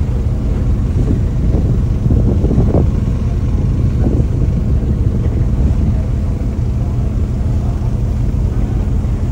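Boat engine running steadily: a loud, low, even drone.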